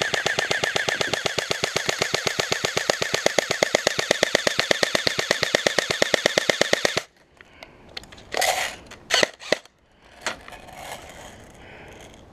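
GNG Raider CM16 airsoft electric rifle (AEG) firing on full auto in one long continuous burst of rapid, evenly spaced shots, stopping suddenly about seven seconds in. A few handling clicks and rustles follow.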